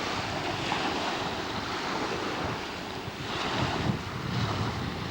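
Sea surf washing at the shore, with wind buffeting the microphone in an uneven low rumble.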